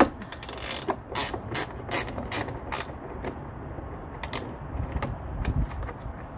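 Ratchet wrench clicking as it turns a nut: a sharp click, then a run of about five crisp clicks a little under half a second apart, then a couple more and a few fainter ticks.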